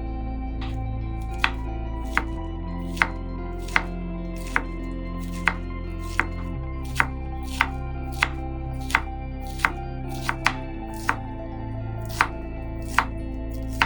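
Kitchen knife chopping on a cutting board, sharp strokes at a steady pace of a little over one a second, with a quick double stroke about ten seconds in, over soft background music with sustained chords.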